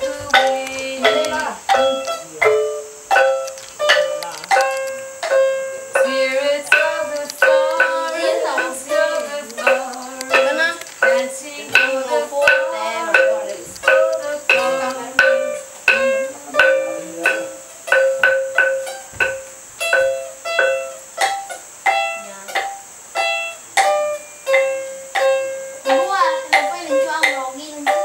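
Sape, the Dayak Kenyah boat-shaped lute, plucked in a steady repeating melody of about two notes a second that keeps returning to one high note, with a small wooden xylophone (jatung utang) struck along with it.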